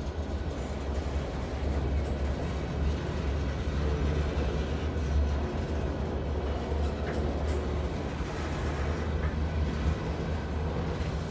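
Freight train's coal hopper cars rolling past over a grade crossing: a steady low rumble with a few light clicks from the wheels.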